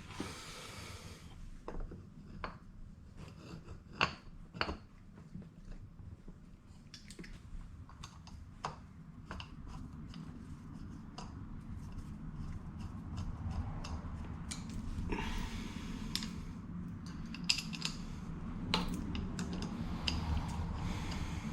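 Scattered clicks and light metallic taps of hands and tools working a tire onto a split scooter wheel rim, over a low steady hum.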